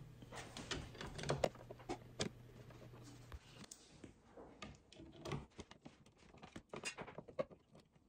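Faint clicks and scrapes of a screwdriver turning the screw of a plastic outlet cover plate, small taps of metal on plastic. A steady low hum underneath stops about three seconds in.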